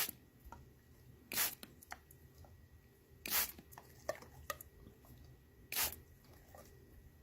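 Short crackling or crunching noises: four louder ones roughly two seconds apart, with faint clicks in between.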